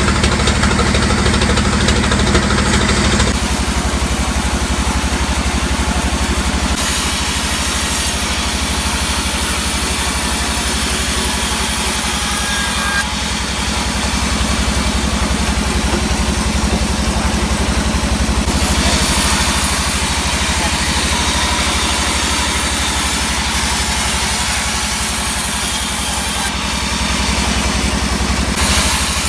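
Sawmill engine running steadily under a hiss of machinery, the sound changing abruptly several times.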